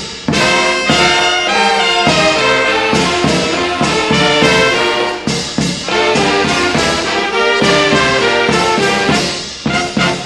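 Brass band with cornets playing a melody in sustained, full-voiced notes. Near the end the sound dips briefly, then short detached notes start at about four a second.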